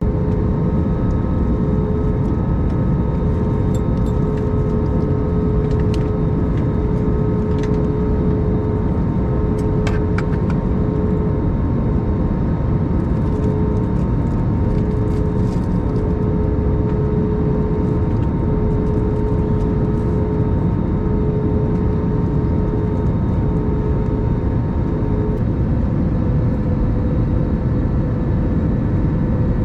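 Steady cabin noise inside an Airbus A321-200 airliner: constant rushing air and engine hum with a few steady tones, and a few faint clicks early on.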